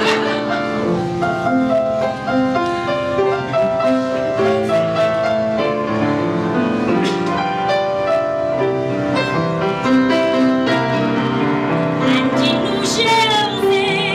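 Grand piano playing the accompaniment of a musical-theatre song, a steady run of held chords and melody notes.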